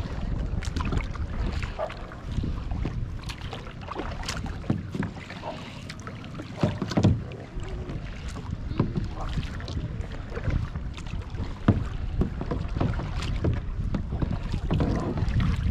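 Kayak paddle strokes in calm lake water: blades dipping, splashing and dripping in an uneven run of small splashes and ticks, with a louder thump about seven seconds in, over wind rumble on the microphone.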